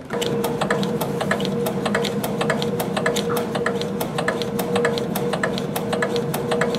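Leica RM2125 rotary microtome being cranked by its hand wheel: rapid, uneven clicking and ticking from the feed mechanism and the blade shaving the paraffin block, over a steady low hum. This is the trimming stage at 10-micrometre steps, facing off the wax to expose the embedded tissue.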